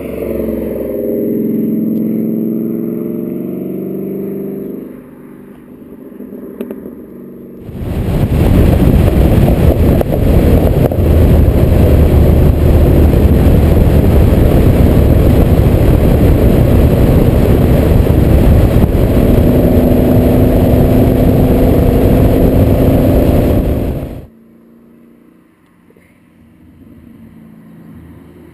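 2013 Ford Mustang GT's 5.0 V8, with a Roush exhaust, revving as it drives past, then fading away. About eight seconds in, the sound cuts to a camera on the car's side at speed: loud wind rush over a steady low engine drone, which stops suddenly about eight seconds before the end.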